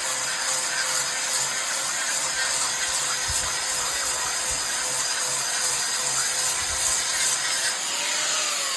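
An electric stone polisher grinds on laterite stone with a loud, steady grinding noise and a constant motor whine. About eight seconds in it is switched off, and the whine falls in pitch as the motor spins down.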